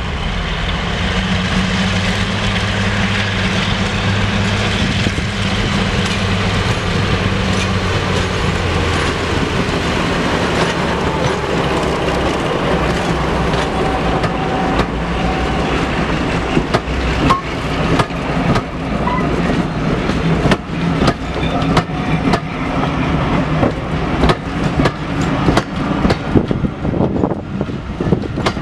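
A diesel locomotive passing with a steady low engine drone, followed by its train of passenger coaches rolling by. The wheels clatter over the rail joints in a regular rhythm of sharp clicks that gets louder in the second half.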